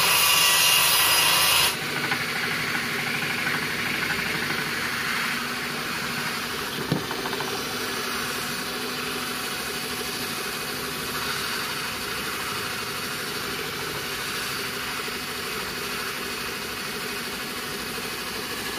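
A cork fishing-rod handle blank spinning on a metal rod under a power tool's motor while sandpaper rubs against it, a steady running and rubbing sound. It is louder for about the first two seconds, then settles to a steady lower level, with a single sharp knock about seven seconds in.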